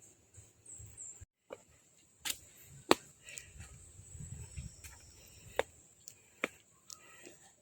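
Steady high-pitched drone of insects, with a handful of sharp taps of footsteps on the steps, the loudest about three seconds in.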